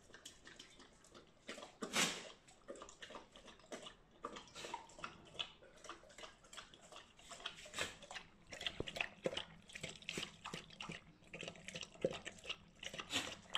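Alaskan Malamute lapping water fast from a stainless steel bowl: a quick, steady run of wet laps and splashes, loudest about two seconds in.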